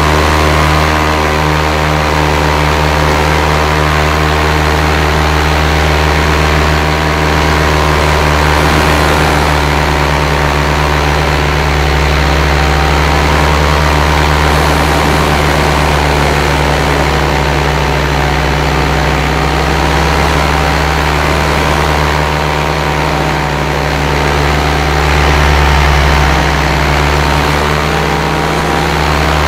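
Paramotor engine and propeller running steadily in flight: a loud, unbroken drone made of a stack of even tones over a haze of rushing noise.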